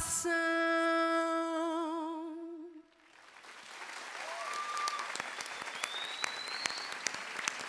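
A woman's singing voice holds the song's final note with vibrato for about three seconds and fades out. An audience's applause then swells up and carries on.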